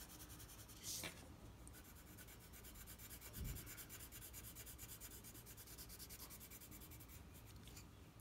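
Faint scratching of a colored pencil shading back and forth on paper. A brief rustle comes about a second in, and a soft low thump about halfway through.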